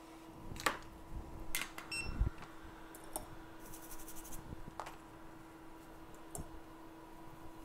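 Scattered clicks and taps of small tools being handled at a microsoldering bench, with a short electronic beep about two seconds in and a brief rapid ticking about four seconds in, over a steady hum from bench equipment.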